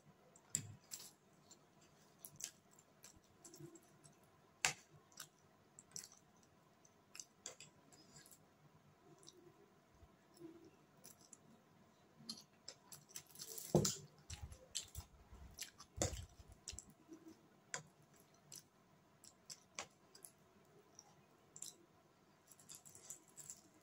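Close-up mouth sounds of someone eating chowmein noodles: faint chewing with irregular small wet clicks, and a louder, longer burst a little over halfway.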